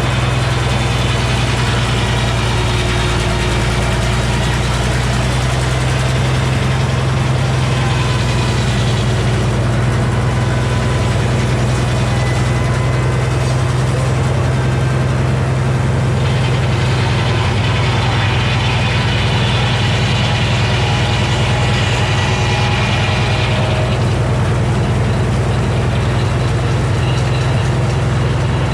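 Engine of a sawmill running steadily with an even, heavy hum. A brighter, higher whir swells for several seconds around the middle and then fades.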